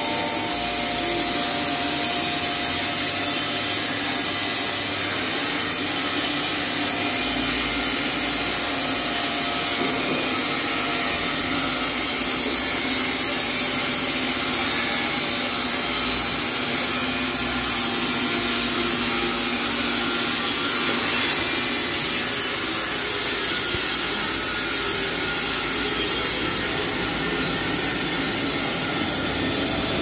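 Carpathian SMSA 110 semi-automatic horizontal band sawmill running steadily, a strong high hiss over a motor hum, as its saw head travels along the rails.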